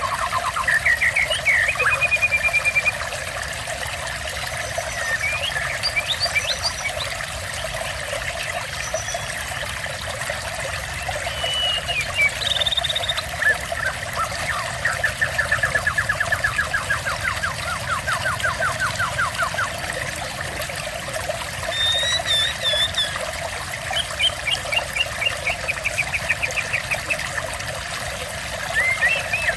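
Steady trickling water with songbirds calling over it: fast trills of rapidly repeated notes, several times over, and short clear whistles. The longest trill runs through the middle.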